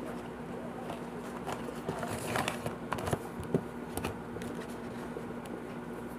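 Takeout food containers being handled and set down on a wooden table: scattered light knocks, clicks and packaging rustles, busiest about two to four seconds in, over a steady low hum.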